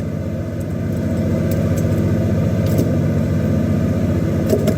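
Fishing boat's engine running steadily, a dense even pulse with a low hum, while a few light clicks sound now and then.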